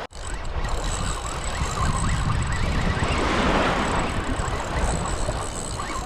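Wind buffeting the microphone over the wash of sea water, with the hiss swelling about halfway through.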